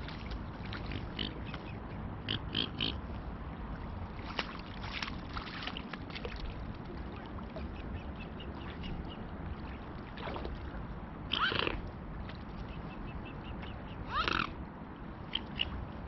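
Mute swans close by giving short grunting calls now and then, over a steady low rumble. The two loudest calls come about eleven and fourteen seconds in.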